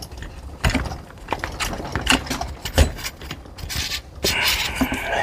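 Irregular clicks and knocks of metal air rifle parts being handled, with a longer scraping rub about four seconds in, as a C88 Machining barrel is lined up and slid into an Umarex Zelos receiver.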